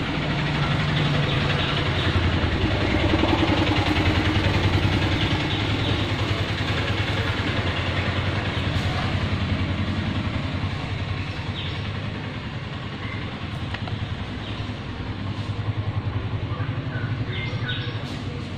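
A steady mechanical running noise, like an engine or motor, with a low pulsing rumble. It is loudest in the first few seconds, eases off, and swells again near the end.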